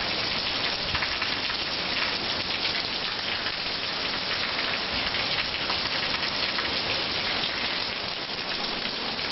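Heavy hurricane rain falling steadily: a constant, even hiss with no letting up.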